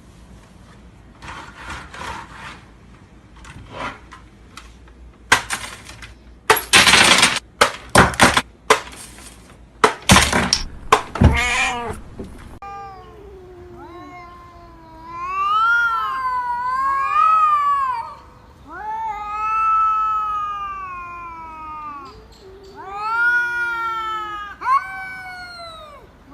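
A cat yowling: several long, drawn-out wails that rise and fall in pitch, after a run of loud, short, sharp noise bursts in the first half.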